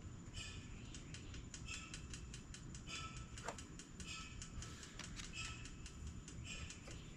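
A hand tool clicks in a regular rhythm, a short burst about once a second with lighter ticks between, as screws are turned in on the carburetor rack.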